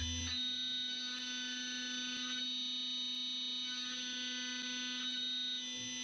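Brother S500 Speedio CNC machining centre running: a low mains-like hum under a high, many-toned electronic whine. The whine sets in just after the start, drops out briefly in the middle, returns, and cuts off shortly before the end.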